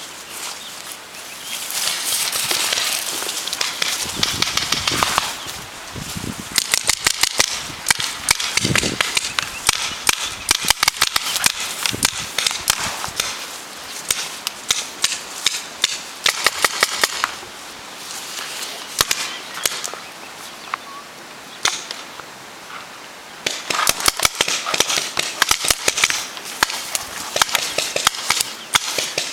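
Paintball markers firing in rapid strings of sharp pops, several a second, in bursts through the game: thickest from about seven to twelve seconds in, briefly around sixteen seconds, and again near the end. A rushing noise fills the gaps between the strings.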